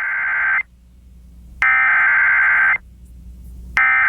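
Emergency Alert System SAME header: buzzing digital data tones sent in bursts about a second long with a second's gap. One burst ends about half a second in, a full burst falls in the middle, and the next begins near the end. The coded header opens a broadcast severe thunderstorm warning.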